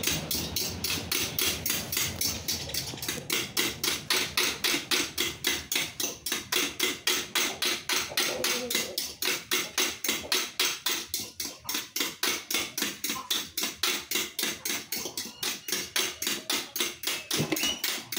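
Fork beating eggs by hand in a bowl: a fast, steady clicking of the fork against the bowl, about four or five strokes a second.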